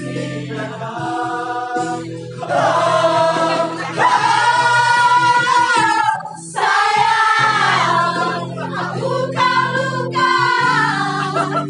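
Music: a choir singing a song in long held notes over steady instrumental accompaniment, with a brief break about six and a half seconds in.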